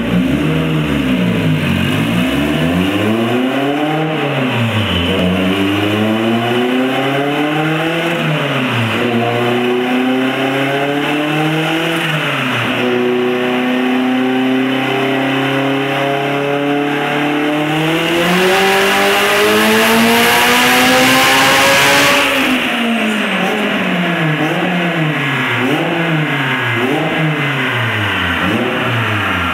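Turbocharged Honda Civic EF hatchback engine on a chassis dyno. It first revs up and down about every two seconds, then climbs steadily in pitch for about nine seconds in a dyno pull, with a loud rushing hiss over the last few seconds of the climb. It drops off suddenly and goes back to revving up and down.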